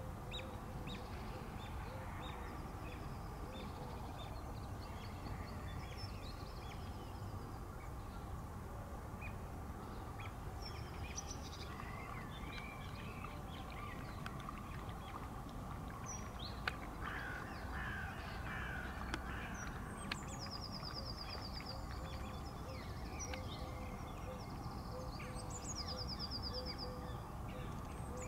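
Wild birds calling over steady background noise: crow-like cawing and scattered short calls, with several high, rapid trills in the second half.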